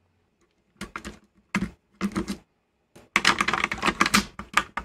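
Small clicks and scrapes of hand tools on the metal and plastic parts of a VCR tape-transport mechanism as its tape guides are being taken off. A few separate clicks come first, then a quick run of clattering taps from about three seconds in.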